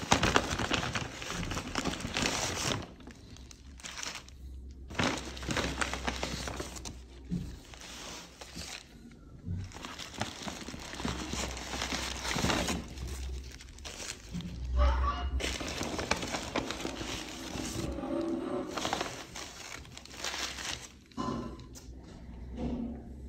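Paper burger wrappers crinkling and rustling as they are handled, in irregular bursts, with a few faint voices.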